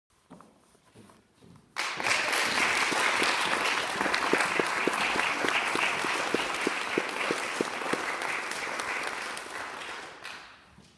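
Audience applauding. It starts suddenly about two seconds in and dies away near the end, with one clapper's claps standing out at about four a second.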